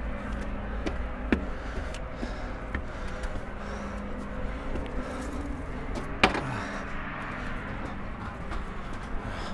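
Steady hum of road traffic with footsteps climbing outdoor steps, and two sharp knocks, the louder about six seconds in.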